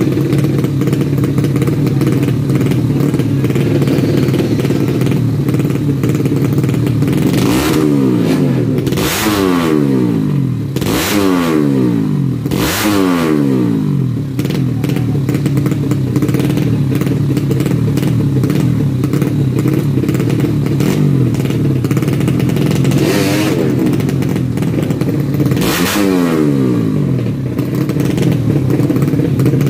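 Tuned four-stroke underbone drag bike engines: a steady running drone with about six sharp, loud bursts of engine noise, four of them close together early on and two later. The pitch falls away after each burst.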